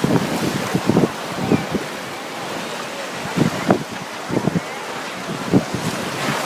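Strong wind buffeting the microphone in irregular gusts over the steady wash of surf.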